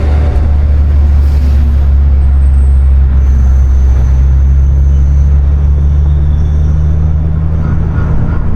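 2020 Honda Civic Si's 1.5-litre turbocharged four-cylinder engine running at a steady speed, a constant low drone with no rev changes.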